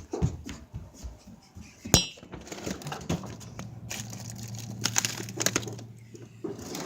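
A freezer being opened and rummaged through: a sharp clink about two seconds in, then a steady low hum under clattering and crinkling.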